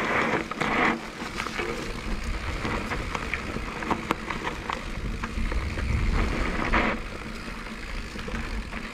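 Canyon Torque:ON electric mountain bike running fast down a dirt forest trail. Its knobby tyres hiss and crunch over soil and leaves, with scattered clicks and rattles from the bike and a low rumble underneath. The hiss swells at the start and again about seven seconds in.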